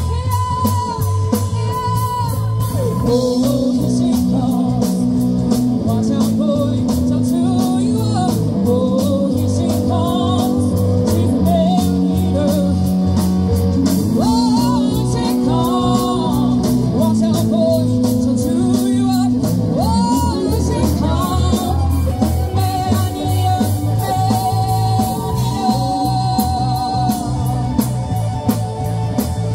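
Live rock band playing through a PA, with a woman singing lead over electric guitar, bass guitar, keyboards and drums.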